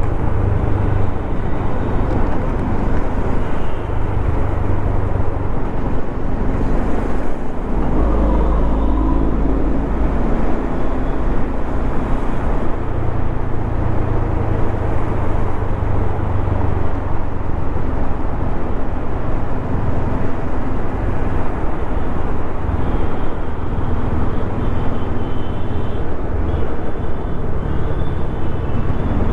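Bajaj Dominar 400's single-cylinder engine running steadily at riding speed under a constant rush of road noise; the engine note shifts about eight seconds in.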